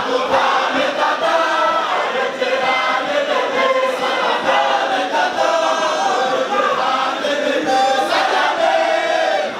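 A large group of men chanting together in a circle at a Muslim devotional gathering, their voices blending in long drawn-out sung lines without a break.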